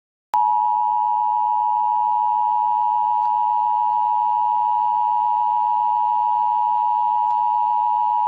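Emergency Alert System attention signal: a steady alert tone just under 1 kHz, the 853 and 960 Hz two-tone pair, starting abruptly and holding unchanged for about eight seconds before cutting off.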